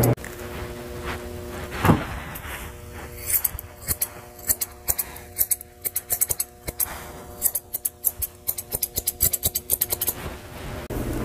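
Curved grooming shears snipping through a poodle's coat: sharp clicks, some single and some in quick runs, over steady background music.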